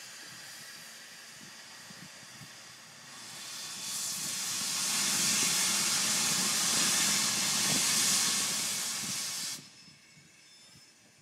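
Steam hissing from Santa Fe 3751, a 4-8-4 Northern steam locomotive. A softer hiss swells about three seconds in into a loud hiss, then cuts off suddenly.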